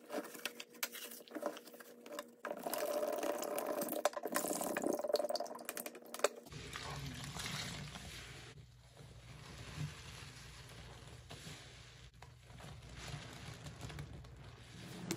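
A cardboard canister of scouring powder being crushed and torn open, with the powder crackling and rustling into a basin. About six seconds in, this gives way to a soaked sponge being squeezed and worked in soapy water, with water squishing and sloshing.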